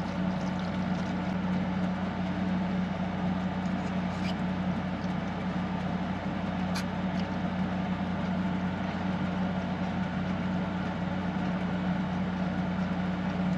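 Small window air conditioner running with a steady hum, and a couple of faint clicks about four and seven seconds in.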